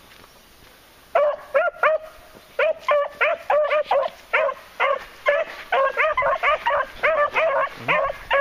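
Beagle hounds giving mouth while working a scent trail. After about a second of quiet comes a quick run of short, repeated barks, a few a second, each rising and falling in pitch.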